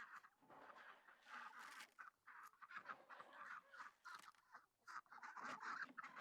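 Chickens clucking and squawking, faint and irregular.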